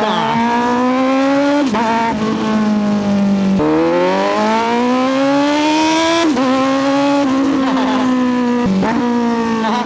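Kawasaki Z900SE's 948cc inline-four engine accelerating hard through the gears. The revs climb, then drop sharply at each upshift, three or four times.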